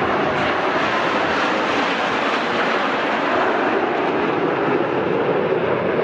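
Steady turbojet noise of Canadair CT-114 Tutor jets flying past.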